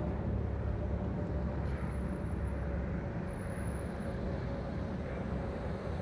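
Steady low rumble of urban outdoor background noise, such as distant traffic, with a faint steady hum above it.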